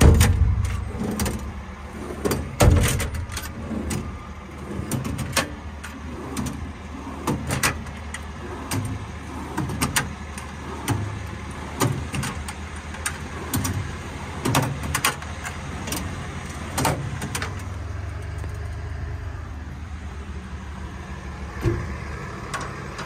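Metal tool drawers in a truck's service body being worked one after another: irregular clicks and clacks of the drawer latch handles and the drawers sliding and knocking shut. The sharpest knocks come at the very start and about three seconds in, over a steady low rumble.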